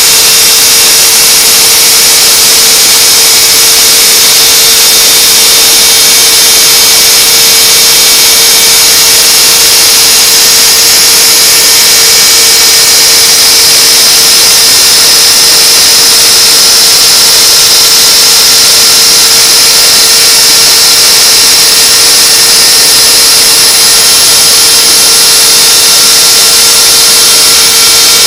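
DIY CNC machine's spindle and end mill cutting aluminium: a loud, steady machine whine with several held tones over a constant hiss.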